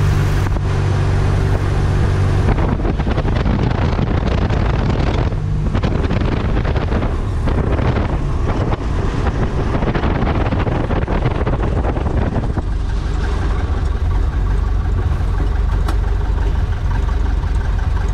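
A Super Cub's engine heard from inside the cockpit as it lands on a gravel bar on big tires: about two seconds in the engine note gives way to a rough, bumpy rumble of the tires rolling over gravel, and from about twelve seconds in the engine idles steadily as the plane slows on the rollout.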